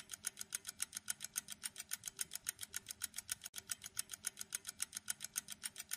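Quiz countdown timer sound effect: an even run of light, high ticks, about five a second.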